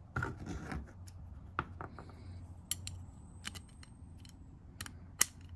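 Hand tools being handled: a socket and extension clinking, with a short rattle at the start and a scatter of sharp metallic clicks, the loudest near the end.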